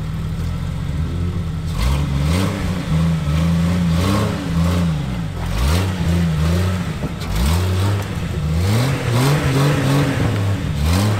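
Jeep Wrangler TJ engine revving up and down again and again as the Jeep claws through swamp mud. With one rear axle shaft snapped, it is pulling on the front wheels alone.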